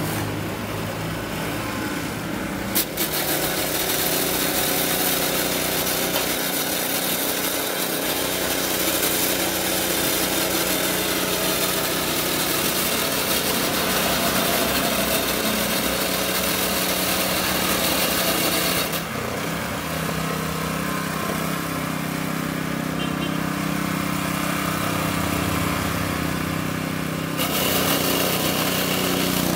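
An engine running steadily, with a hiss above it that fades for several seconds in the latter half and comes back near the end.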